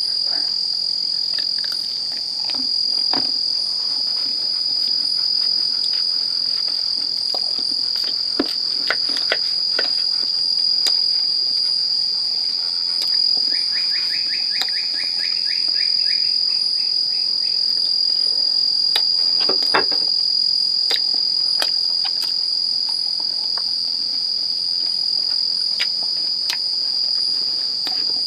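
Night insect chorus: one steady, high-pitched, unbroken trill. About fourteen seconds in, a second insect adds a short, fast pulsing trill lasting about two seconds. Light clicks and knocks are scattered over it.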